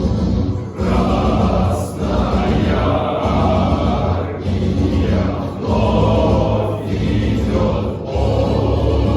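Music: a male choir singing sustained, chant-like chords over a steady low accompaniment.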